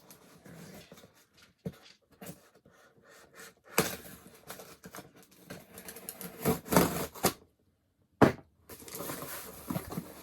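A taped cardboard shipping box being worked open by hand: irregular scraping, tearing and rustling of tape and cardboard, with a sharp knock about eight seconds in.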